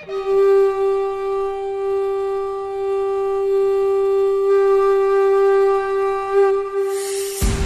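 A conch shell (shankha) blown in one long, steady note, held for about seven seconds before it stops near the end.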